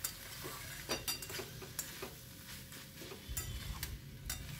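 A spatula stirring and scraping thick cauliflower-stalk curry around a metal kadai, with scattered clinks against the pan and a faint sizzle. The curry is being cooked down on a low flame.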